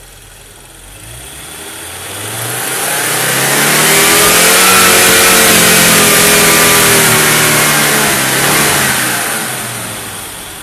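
Audi 200 10v turbo quattro's turbocharged inline-five engine revved once from idle during fuel-mixture adjustment. It climbs slowly from about a second in, holds high revs for several seconds with a hiss that swells with the revs, then drops back toward idle near the end.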